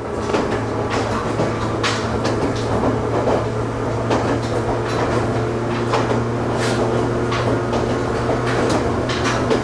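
Inside an Ohmi Railway electric train running along the line: a steady low hum over the rumble of wheels on rails, with frequent sharp clicks and rattles.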